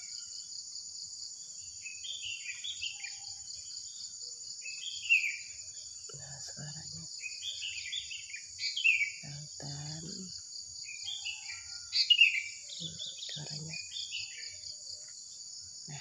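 Wild songbirds chirping in repeated phrases of short, shrill, falling notes over a steady high-pitched insect drone.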